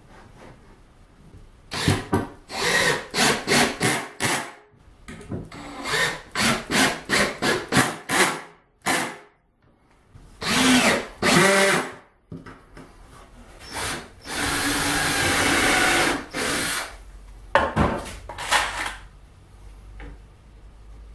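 Cordless drill-driver fastening plywood strips to a wall. It runs in clusters of short trigger pulses, then in two longer bursts and one steady run of about two seconds, with pauses in between.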